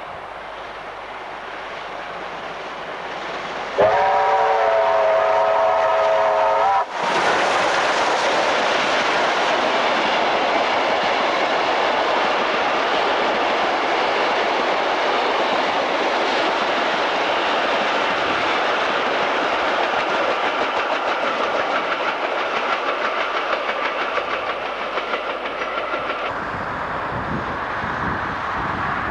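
Steam locomotive approaching, its chime whistle sounding a multi-note chord for about three seconds before cutting off suddenly. Then a passenger train runs past close by: a loud, steady rush of wheels on rails.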